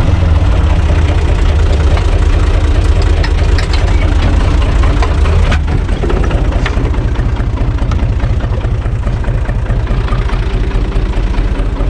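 Universal U445 tractor's diesel engine idling steadily. A few sharp clunks about halfway through as the cab door is opened, after which the engine is heard from outside the cab.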